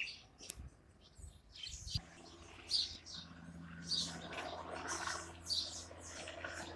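Birds chirping in short repeated calls. From about two seconds in, the low, steady hum of a distant helicopter comes in and grows slightly louder toward the end as it approaches.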